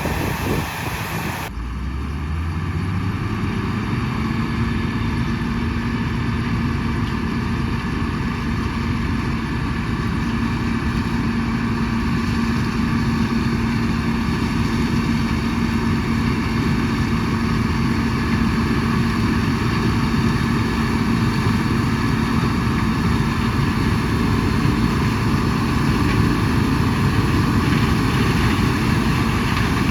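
John Deere 6600 combine running; its engine climbs in pitch over the first few seconds as it comes up to speed, then holds a steady, even drone.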